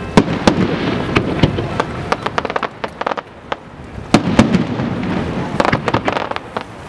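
Aerial fireworks display: shells bursting overhead in rapid clusters of sharp bangs and cracks, one after another, over a low rumble.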